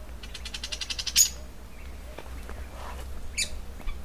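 Wild birds calling: a rapid high trill lasting about a second, then a sharp high chirp, and another chirp near the end.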